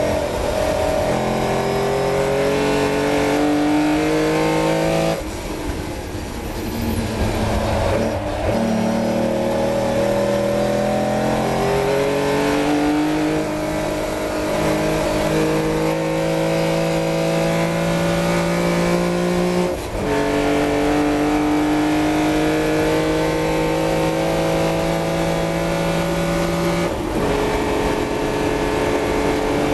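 Austin-Healey 3000's straight-six engine heard from the cockpit at full throttle, its note climbing steadily through each gear and dropping at each upshift. Its pitch steps down a few times. About five seconds in the engine briefly goes quieter off the throttle before pulling again.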